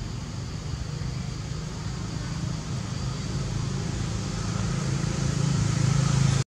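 A motor vehicle's engine running with a steady low hum that grows louder toward the end.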